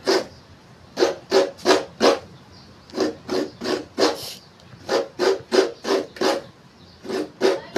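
Coconut meat scraped by hand against a grater. The strokes come quickly, about three a second, in runs of four or five with short breaks between the runs.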